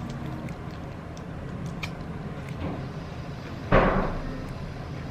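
Faint crinkling of a plastic snack wrapper over a steady low room hum, then a single loud thump about three and a half seconds in.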